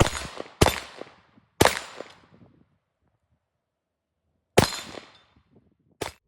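Shots from an AR-15-style carbine: three in quick succession within about two seconds, then after a pause of about three seconds two more, each sharp crack followed by a short fading echo.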